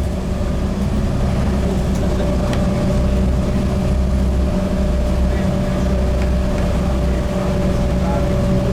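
Volvo B7TL double-decker bus's D7C six-cylinder diesel running steadily under way, heard from inside the saloon, with a steady high tone over the low engine note.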